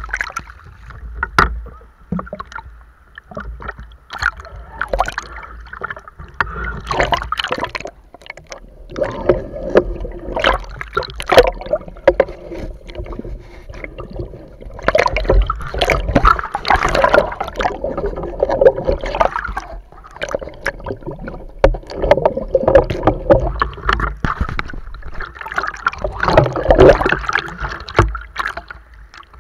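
Seawater sloshing, splashing and gurgling around a camera held at the waterline, dipping in and out of the water in irregular surges.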